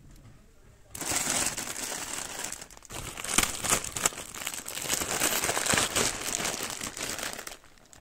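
Crinkly plastic wrapping of a Buldak instant ramen multipack rustling and crackling as it is handled. It starts about a second in, dips briefly near the middle, and stops shortly before the end.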